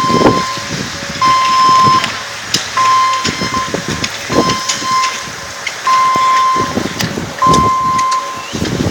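An electronic beep sounding over and over, each tone held just under a second and repeating about every one and a half seconds, over irregular rushing noise.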